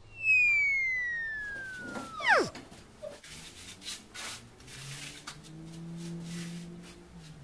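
A long falling whistle tone that slides down for about two seconds and then plunges sharply. It is followed by a run of short rasping scrapes as a hand float is worked over a wet cement mortar bed, with a low hum underneath near the end.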